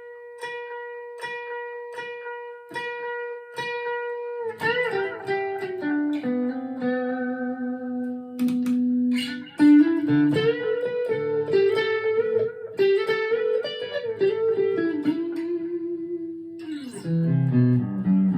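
Chapman ML3 Pro Thinline electric guitar played clean: one high note picked over and over for about four seconds, growing louder as the volume knob is rolled up. It then breaks into a melodic lead line with chords and drops to a low chord near the end.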